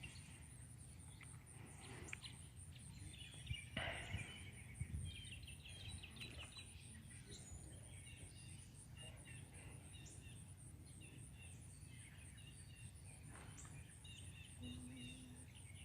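Faint, distant songbirds chirping and singing in short repeated phrases over a low outdoor rumble, with a steady high pulsing insect-like buzz and a couple of soft knocks.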